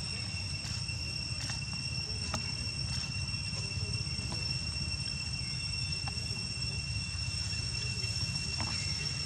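Steady, unbroken insect trill at one high pitch, over a steady low rumble, with a few faint scattered clicks such as dry leaves being crunched.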